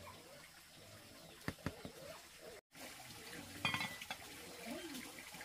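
Scattered knocks and clinks of metal cookware being handled, one cluster of clinks ringing briefly.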